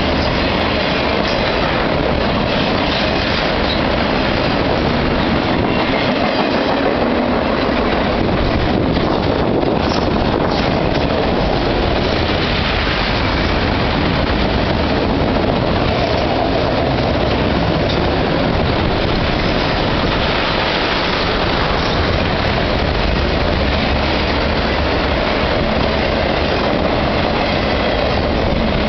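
Freight train of autorack cars rolling past close by: a steady, loud rumble and clatter of steel wheels on the rails.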